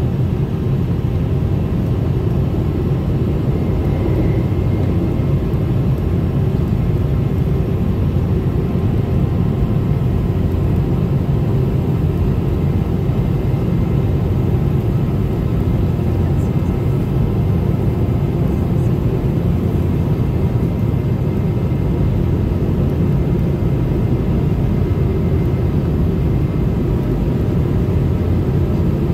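Steady cabin noise inside a Boeing 717-200 climbing out after takeoff: the drone of its two tail-mounted Rolls-Royce BR715 turbofans and rushing air, with a few faint steady whine tones over it.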